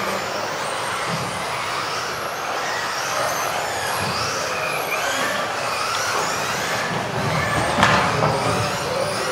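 Several electric RC off-road race cars with modified-class brushless motors whining around the track, many high pitches rising and falling over one another as they accelerate and brake. There is one sharp knock a little under eight seconds in.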